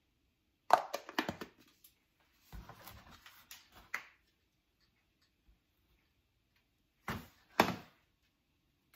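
Sharp plastic clicks and knocks about a second in as the two halves of a hollow plastic ball are fitted together, then rustling and two more knocks near the end as items are handled in a cardboard box.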